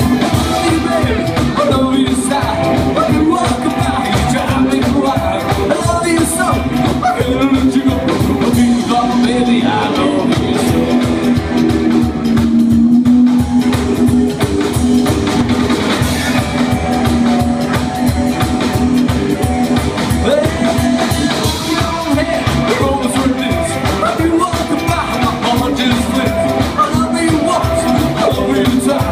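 Live rockabilly band playing: Gretsch electric guitar, upright double bass and drum kit.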